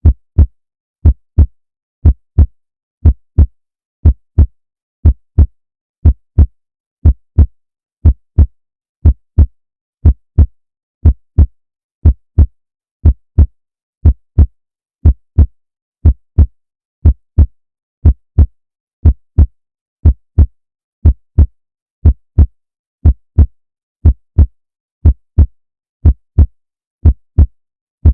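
Heartbeat in a steady lub-dub rhythm: paired low thumps about once a second, with silence between beats.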